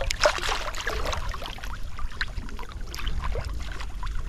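Irregular splashing and sloshing of shallow water, with wind rumbling on the microphone.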